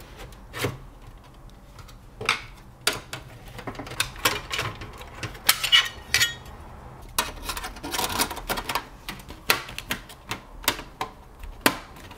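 Irregular metallic clicks, knocks and scrapes as a power supply unit is worked loose and slid out of a small sheet-metal mini-ITX computer case.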